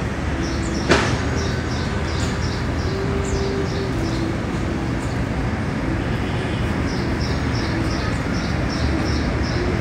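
Steady city street noise: a low traffic rumble, with groups of short high chirps and one sharp click about a second in.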